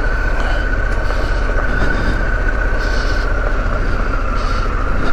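Harley-Davidson Pan America's 1250 V-twin running steadily at low speed on a rough off-road track, with a steady high whine over the low rumble.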